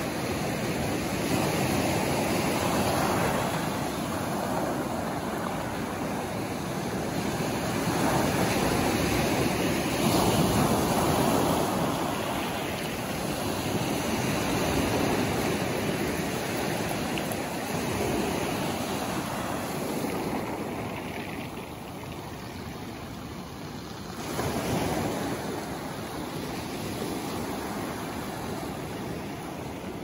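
Ocean surf breaking and washing up a pebble beach, swelling and easing every few seconds.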